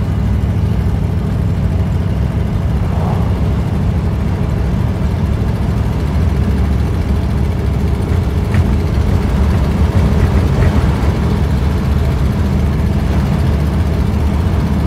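1955 Ford Fairlane cruising at a steady speed, heard from inside the cabin: a steady low engine and exhaust drone mixed with road and wind noise.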